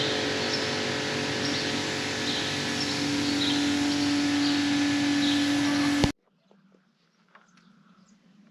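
Small birds chirping repeatedly over a loud, steady machine hum. About six seconds in, everything cuts off abruptly, leaving only faint sound.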